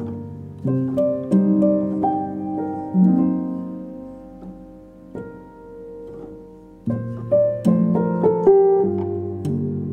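Instrumental background music of gentle note-by-note melody, thinning out around the middle and picking up fuller again about seven seconds in.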